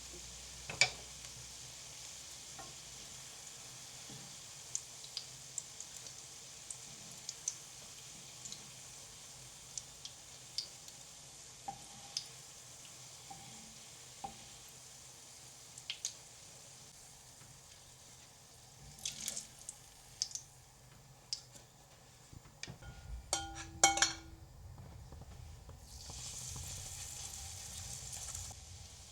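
Food sizzling in a hot frying pan, with scattered light clicks and taps of a utensil. About two-thirds of the way in a metal clink rings briefly, and near the end the sizzle grows louder for a couple of seconds.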